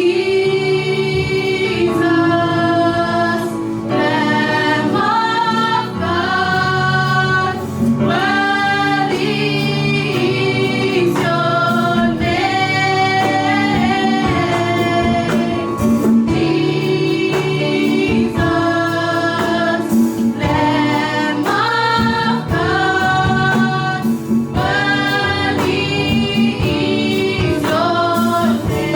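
Church choir singing a gospel worship song with instrumental backing, voices holding long notes over a steady bass line.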